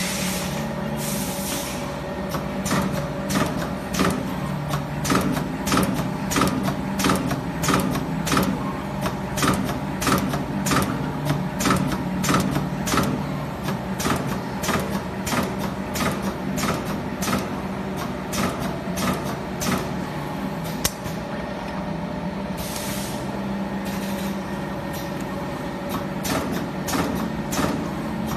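Membrane switch hole punching machine's pneumatic punch head striking in a regular series of sharp clicks, roughly two to three a second, over a steady machine hum, with short air hisses. The punching stops for a few seconds after about twenty seconds, then starts again near the end.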